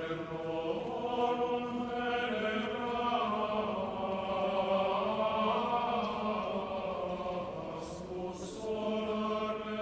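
Choral chant as background music: voices singing long, slowly shifting held notes.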